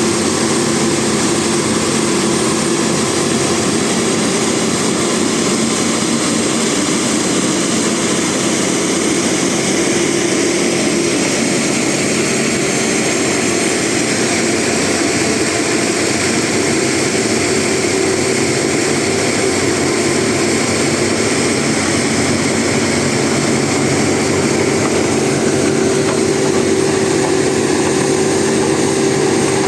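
Heavy diesel engine of construction machinery running steadily at a constant level, with a continuous engine hum and no breaks.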